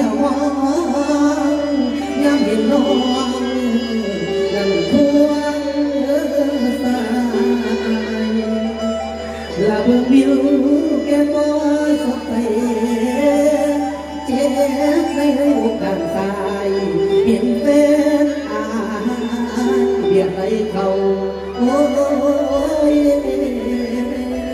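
Live mor lam music over a PA: a man sings a long, gliding, ornamented melody into a microphone over the backing band.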